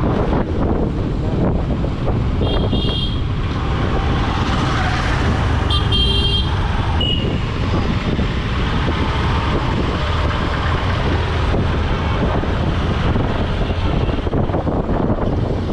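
Motorcycle riding through street traffic: a steady low rumble of wind on the microphone with engine and road noise, and vehicle horns beeping about 3 seconds in and again about 6 seconds in.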